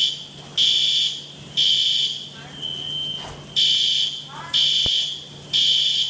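Hotel fire alarm sounding in loud, high-pitched blasts, about one a second and each about half a second long, with a quieter steady high tone filling one of the gaps.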